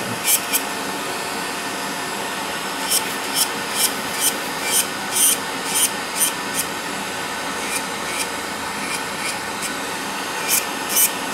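Electric podiatry nail drill running steadily at high speed, its sanding cap grinding a fungus-thickened toenail. From about three seconds in, short high scraping bursts come roughly twice a second as the bit is worked over the nail.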